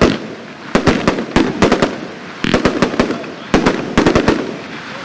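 Red Maroon 100-shot firework cake firing: sharp bangs come in quick clusters about once a second, with crackling between them. The bangs stop near the end.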